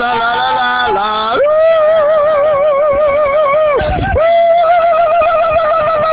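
A voice singing long held notes with a regular wavering vibrato, two sustained notes broken by a short breath about four seconds in.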